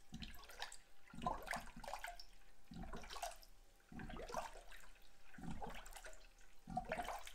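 Coolant gurgling and bubbling as it drains from a spill-free bleeder funnel into a car's cooling system, in irregular glugs, as trapped air burps up through the funnel while the system fills.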